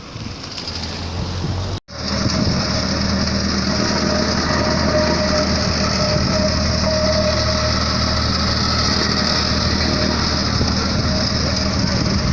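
Engine of road-repair machinery running steadily, with a steady hiss over it. The sound drops out for a moment a couple of seconds in and comes back louder.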